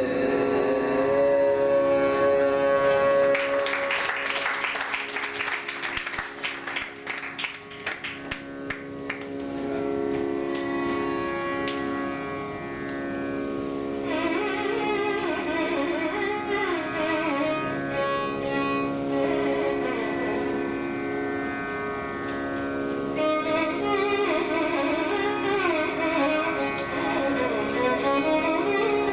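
Carnatic violin playing a slow, gliding improvised melody in raga Shanmukhapriya over a steady tanpura drone, the violin coming in about halfway through. Before it, the drone runs alone with a few seconds of noisy clatter.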